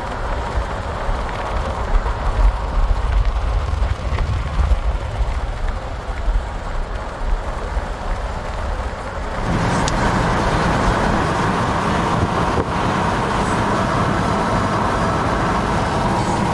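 Road and wind noise inside a moving car, a low rumble that turns abruptly louder and brighter about two-thirds of the way in.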